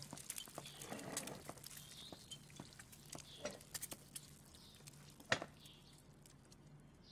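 Soft, scattered clicks and taps of tableware and movement around a breakfast table, with one sharper knock about five seconds in.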